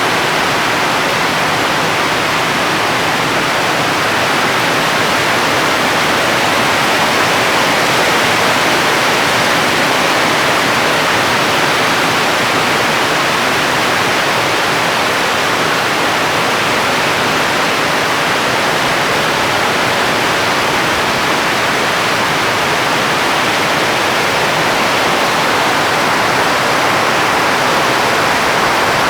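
Rain falling steadily: a loud, even hiss that does not change, with no thunder or separate drops standing out.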